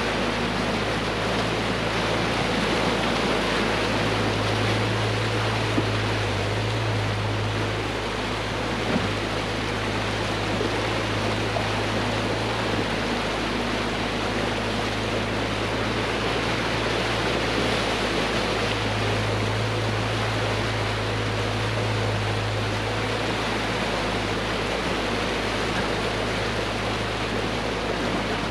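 Steady low drone of a Mack semi truck's diesel engine under a constant rushing road and wind noise while driving; the low hum swells twice and settles back.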